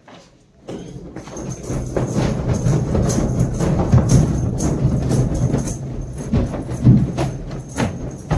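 Background music with a steady percussive beat, about two beats a second, coming in about a second in.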